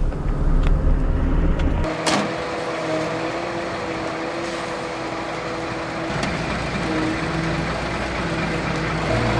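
Heavy truck engine running steadily, a noisy drone with a held whining tone. It follows about two seconds of deep bass music that cuts off with a click.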